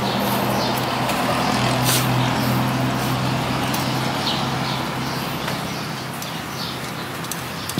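A motor vehicle engine running nearby, a steady low hum that fades over the last few seconds. Light clicks of wire spokes being handled against the rim and hub are heard along with it.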